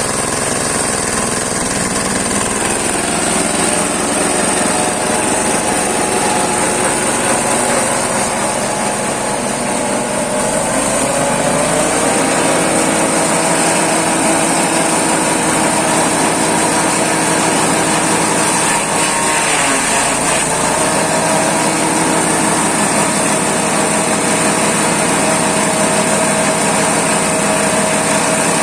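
Small engine-driven grass chopper (chaff cutter) running steadily, its engine speed rising a little about ten seconds in and then holding.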